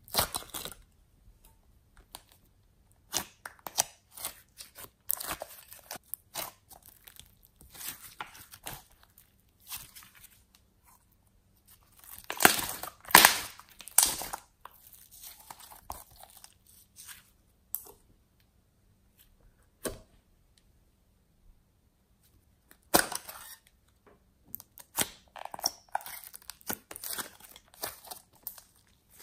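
Hands squeezing, pressing and stretching pink glitter slime, making irregular sticky clicks, pops and crackles. The loudest run of crackling comes about halfway through, followed by a few seconds of near quiet.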